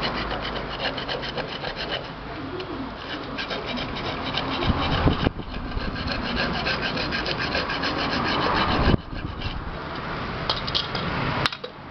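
Coarse iron sandpaper scraping back and forth in quick strokes on the aluminium rim of a pressure-cooker lid, smoothing it so the rubber gasket will seal. The scraping stops about nine seconds in, and a single sharp click comes near the end.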